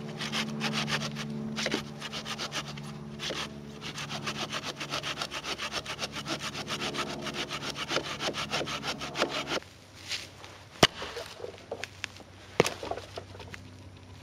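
Small folding hand saw cutting through a fallen log in quick, even back-and-forth strokes, about three a second. The sawing stops almost 10 seconds in, and a few sharp knocks follow.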